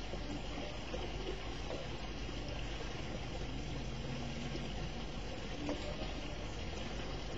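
Steady rain falling, a continuous even hiss, with a low hum underneath.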